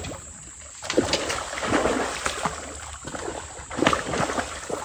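Hooked bowfin thrashing at the water's surface as it is reeled in to the bank: a run of irregular splashes starting about a second in.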